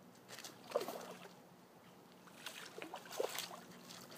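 A hooked trout splashing and thrashing in the water at the surface as it is brought in, in two bouts, about half a second in and again about two and a half seconds in.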